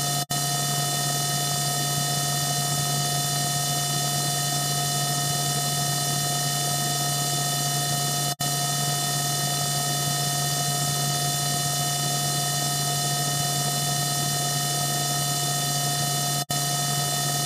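Steady electric hum sound effect: a low drone with several steady high-pitched tones over a hiss. It cuts out for an instant three times, about eight seconds apart, where the loop restarts.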